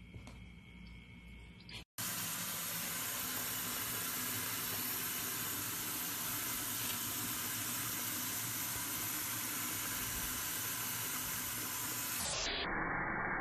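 Water from a kitchen tap running in a steady, hissing stream into a stainless-steel sink. It starts abruptly about two seconds in and sounds duller near the end.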